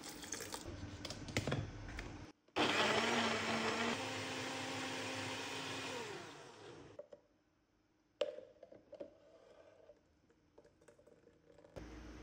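Philips ProBlend countertop blender motor running at speed on a soupy mixture. It starts abruptly about two and a half seconds in, its pitch steps up slightly a second later, and it winds down about four seconds after starting. A few light clicks and knocks come before and after.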